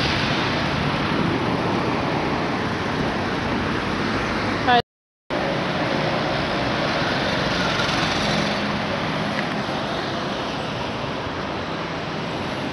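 City street traffic: a steady wash of passing cars and engines, broken by a brief total gap about five seconds in.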